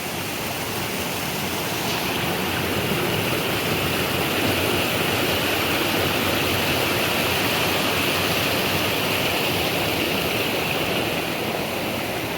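Rushing creek water, a steady hiss that swells a little in the middle and eases slightly near the end.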